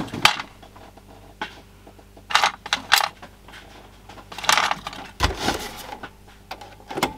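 Small DC power plugs clicking and rattling in a clear plastic parts box as a hand sorts through them, in several short bursts, then a dull knock about five seconds in as the portable TV set is picked up and turned around.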